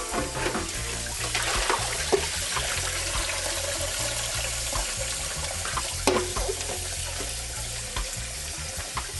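Tap water running over raw chicken in a kitchen sink for a final rinse, with small knocks and splashes as the pieces are handled.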